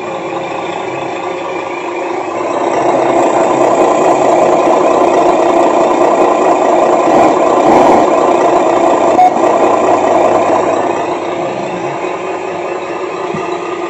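Electronic engine-sound module in a handmade RC Hino dump truck, playing a truck engine running through its small speaker after start-up, with the truck in neutral. It gets louder from about two and a half seconds in, holds, and eases back near the end.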